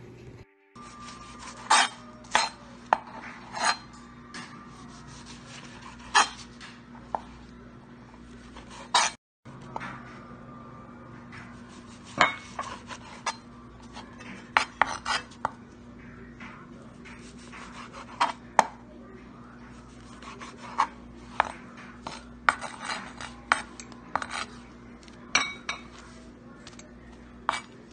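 Kitchen knife cutting slices of white bread into cubes, its blade knocking on the cutting board in irregular sharp taps.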